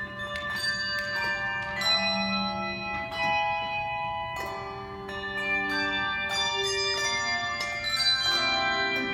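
Handbell choir playing a piece: tuned hand bells struck in chords, each note ringing on and overlapping the next.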